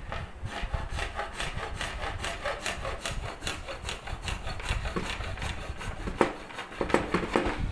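Hand hacksaw cutting through a thin ring of PVC pipe, in quick, even back-and-forth strokes.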